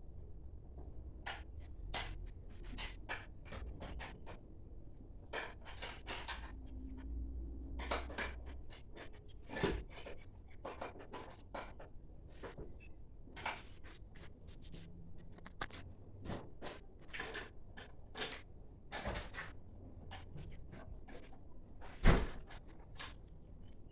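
Tools and metal engine parts being handled on the workbench: a run of short clicks, scrapes and clinks, with one heavy knock about 22 seconds in.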